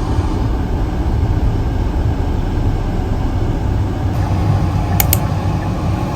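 Car driving on the road: a steady low rumble of engine and tyres, with two short high clicks about five seconds in.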